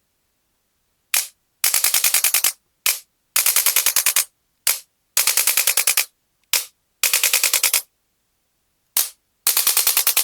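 Chiropractic adjuster gun firing: a single click, then a rapid burst of about ten strokes in a second, repeated four or five times.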